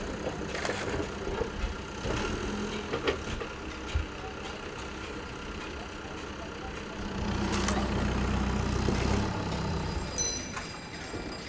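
Backhoe loader's diesel engine running steadily, working harder and louder from about seven to nine seconds in as the front loader bucket scoops rubble. Several sharp knocks and scrapes of the bucket and shovels on the debris are heard over it.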